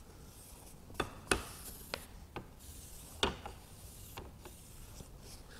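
A cloth rag rubbing wood stain onto a wooden trim strip, a faint scuffing, broken by about six short sharp knocks.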